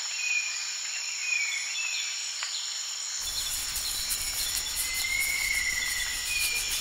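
Forest ambience: a steady high chorus of insects, with a few short bird whistles over it and a longer drawn-out whistle in the second half; a low background noise comes in about three seconds in.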